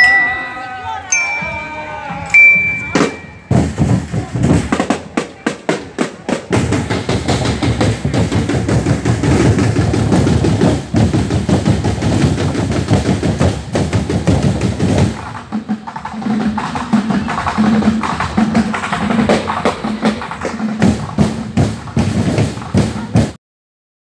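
Marching drum band: a few ringing bell-lyre (marching glockenspiel) notes at first, then rapid steady snare and other drum beating with voices around it. About two-thirds of the way in it turns to a lower, pulsing drum beat, and near the end it cuts off suddenly.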